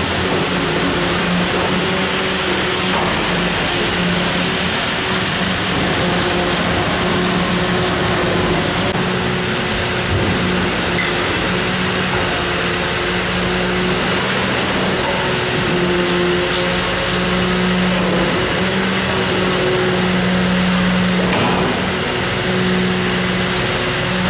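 Rear-end loader refuse truck's engine and hydraulics running steadily with a low hum that swells a little at times, while the rear bin lifter tips a wheeled bin into the hopper.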